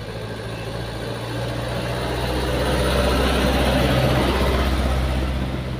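A motor vehicle passing close by: a steady engine hum with road noise that grows louder to a peak about three to four seconds in, then fades.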